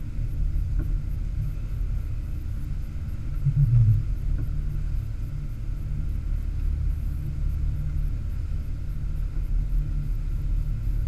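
Steady low rumble of a center-console boat running at speed, engine and wind noise blended together, with a brief louder swell about four seconds in.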